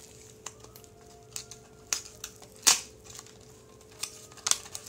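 A small cardboard-and-plastic earphone package being opened by hand: scattered crinkles, clicks and snaps, the sharpest about two and a half seconds in.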